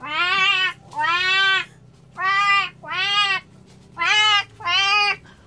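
A young boy imitating a cat's meow with his voice: six meows in three pairs, each call rising then falling in pitch.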